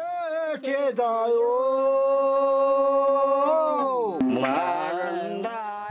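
A man singing a long held note that drops away about three and a half seconds in, then goes on with wavering phrases, to a dombra, the two-stringed Kazakh lute.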